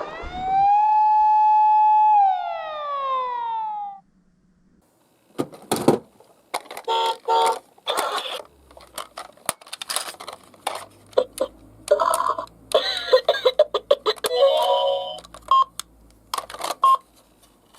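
A siren rises, holds one pitch for about a second and a half, then slides down and stops about four seconds in. After a short silence, many short clicks and brief beeping tones follow irregularly.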